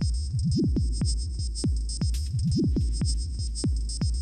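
Electronic background music with a steady beat and a deep, sustained bass, its pattern repeating about every two seconds.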